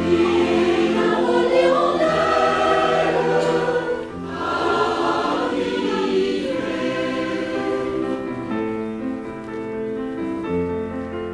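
Mixed choir singing a French song. About eight seconds in the voices drop away, leaving steadier held notes from a piano accompaniment.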